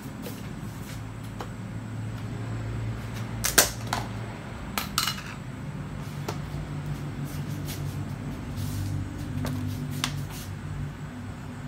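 A steady low hum with a few sharp clicks: the loudest about three and a half seconds in, two more around five seconds, and a fainter one near ten seconds.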